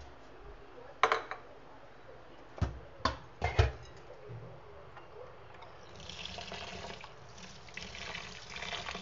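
A few sharp knocks as a steel platter of rice is handled in a steel sink. About six seconds in, a tap starts running water steadily onto the rice as it is rinsed by hand.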